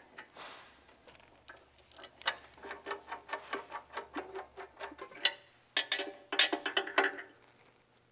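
Hand ratchet wrench clicking in quick, even strokes, about five clicks a second, as a bolt is run in. It is followed by a few louder metallic clinks of steel tools near the end.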